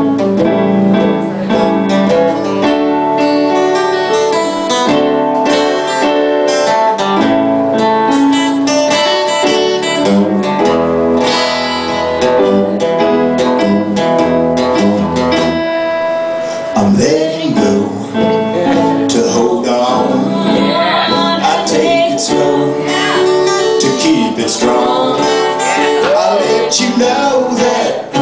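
An acoustic guitar song, with strummed and plucked guitar throughout and a voice singing over it through the second half.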